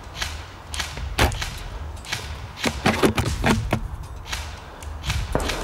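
Irregular sharp clicks and snaps, with a close cluster of them near the middle, over a steady low rumble.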